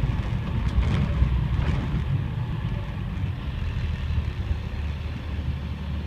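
Diesel engine of a 2005 Blue Bird Vision school bus running at low speed as the bus slows to a stop, heard as a steady low drone from inside the bus, with a few light rattles early on.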